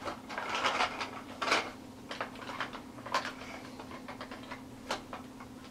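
Small plastic toys, including a toy ice cream truck and dolls, handled and set down, with irregular clicks, taps and clatter. The bigger knocks come in the first two seconds and again near the end.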